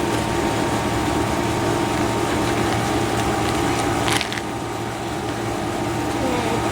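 A steady mechanical hum with several unchanging tones, and a short click about four seconds in.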